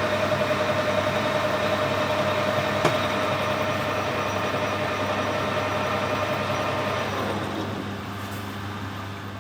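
Metal lathe turning stainless steel bar, running steadily with a whining tone while the tool cuts; about seven seconds in the cut ends and the sound drops to a quieter hum. A single sharp click about three seconds in.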